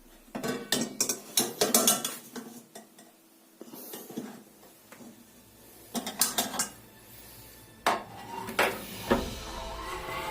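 Metal kitchenware and dishes clinking and knocking as they are handled: a run of quick clinks in the first two seconds, another short run about six seconds in, then a few single knocks.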